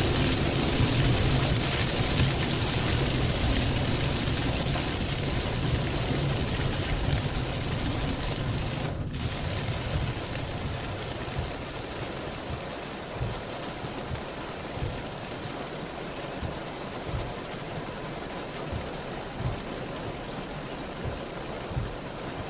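Heavy typhoon rain pouring steadily, with a low vehicle rumble that fades over the first half, then occasional low knocks.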